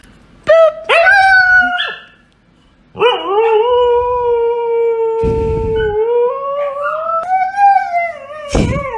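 Siberian husky howling: two short yowls about a second in, then after a pause one long howl that holds steady and rises in pitch near its end.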